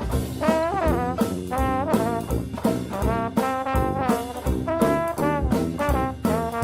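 Background music: a jazzy brass melody over a steady drum beat.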